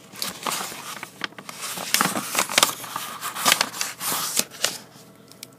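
Paper rustling and crinkling as a book's pages are handled: a run of crackly bursts that stops shortly before the end.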